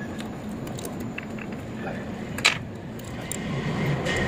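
Metal clicks and clinks of a wrench working the bolts of a machine's bearing housing as the new bearing is fitted back on, with one loud sharp click about two and a half seconds in. A steady machinery hum runs underneath.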